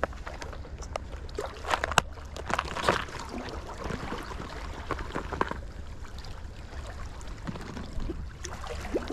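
Wind rumbling on the microphone over water washing against rocks, with a scatter of small clicks and knocks as a plastic tackle box is handled, thickest about two seconds in.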